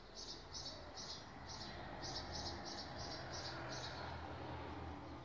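A rapid series of short, high-pitched chirps, about three to four a second in uneven runs, which stop about four seconds in, over a faint low background hum.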